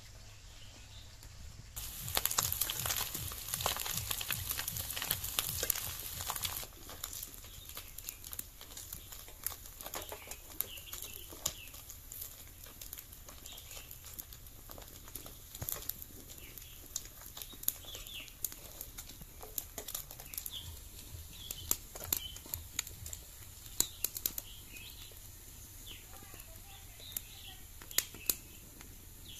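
Small tyangra fish frying in hot oil in an iron karahi over a wood fire: a loud burst of sizzling and crackling about two seconds in that drops off after about four seconds, then quieter spattering with scattered sharp clicks of the spatula against the pan.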